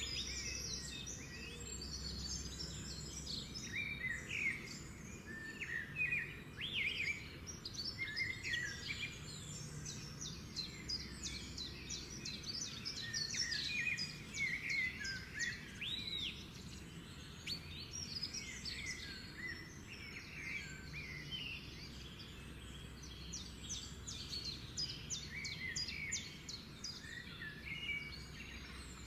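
Pet lovebirds chirping and chattering in quick, high calls throughout, over a steady low background hum.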